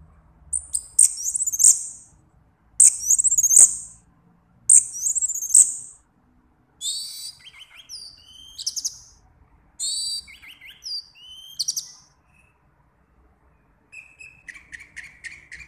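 Orange-headed thrush singing: three loud, high, repeated phrases, then more varied phrases of sweeping notes, and near the end a quick run of lower notes.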